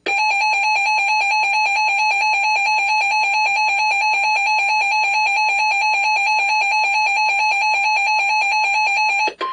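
Electronic alert alarm of an emergency-alert receiver, a buzzer-like beep pulsing rapidly and evenly at one steady pitch, announcing an incoming severe thunderstorm warning. It cuts off near the end and gives way to a different, quieter steady tone.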